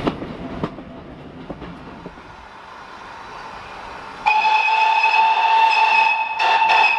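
Steam locomotive whistle sounding a loud, long, steady blast that starts about four seconds in and breaks briefly near the end. Before it there is quieter train running noise with a few knocks.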